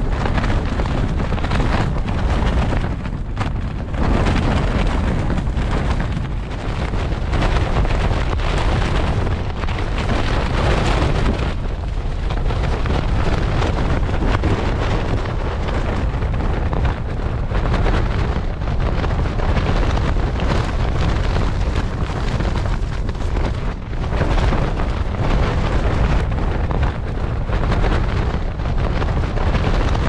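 Storm-force wind battering a broken tent: a loud, continuous rush of wind with shaking, flapping tent fabric and heavy wind buffeting on the microphone. It surges and eases in gusts, dipping briefly a few times.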